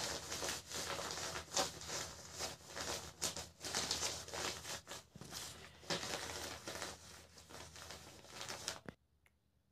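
Rustling and crinkling handling noise as hands move a smartwatch and a small plastic piece about on a creased sheet, with many small crackles; it stops suddenly near the end.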